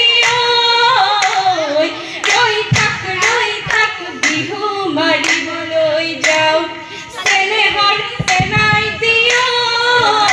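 Women singing a Jeng Bihu folk song, with steady rhythmic hand claps about twice a second keeping the beat.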